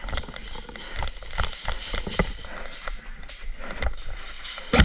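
Airsoft guns firing: a string of sharp, irregular pops, some overlapping, with the loudest shot near the end.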